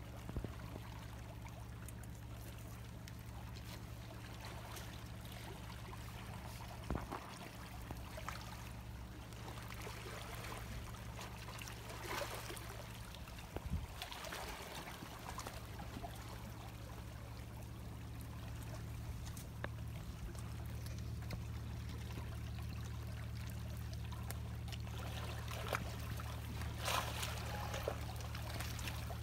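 Shallow seawater lapping and trickling over shoreline rocks, over a steady low rumble, with a few short knocks and scrapes scattered through.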